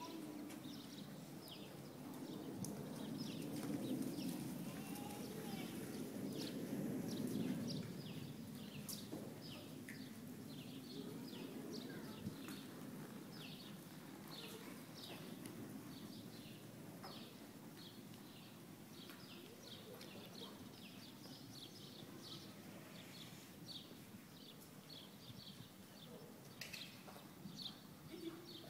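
Faint, muffled hoofbeats of a horse moving over sand arena footing, with small birds chirping on and off all through.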